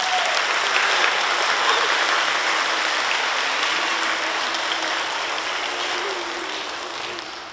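An audience of schoolchildren applauding: steady, dense clapping that tapers off near the end.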